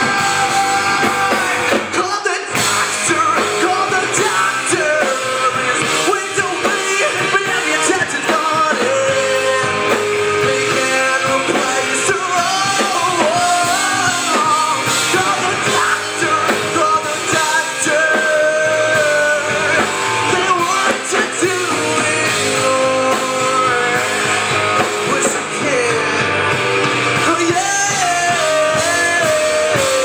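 Live rock band playing: electric guitars, bass and drums under a sung lead vocal, loud and continuous.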